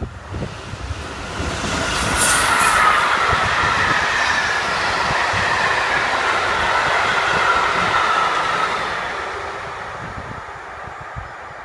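DB Class 59 diesel locomotive, an EMD two-stroke V16, passing close at speed with a long train of coaches. The noise swells as the locomotive goes by about two seconds in, holds through the coaches with a high whine sliding slowly down in pitch, then fades away.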